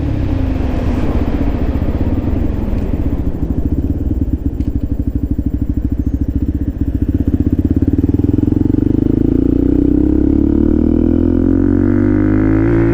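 Benelli TNT125 single-cylinder motorcycle engine and exhaust at close range. It drops to a low, pulsing beat as the bike slows, then pulls away with the pitch rising steadily over the last several seconds.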